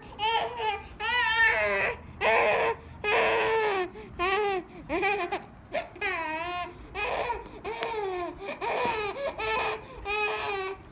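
A five-month-old baby fussing, with a string of short cries, one every half second to a second, each bending up and down in pitch.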